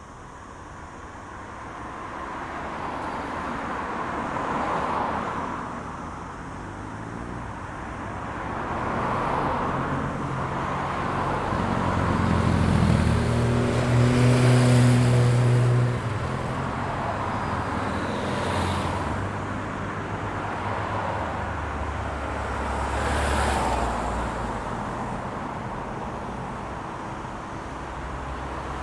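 Road traffic: vehicles passing one after another, their tyre and engine noise swelling and fading away. The loudest is a vehicle with a deep engine hum from about twelve to sixteen seconds in, which drops off abruptly.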